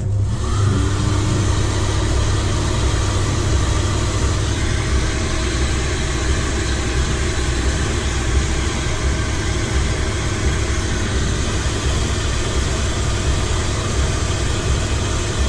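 Electric heat gun blowing steadily, switched on at the start with a brief rising whine as its fan spins up. It is drying the sodium silicate coating on a thrown clay pot before the walls are stretched out to crackle the texture.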